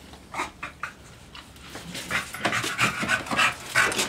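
American Bully dogs panting, quick breathy huffs several times a second that start about halfway through and grow louder as the dogs meet face to face.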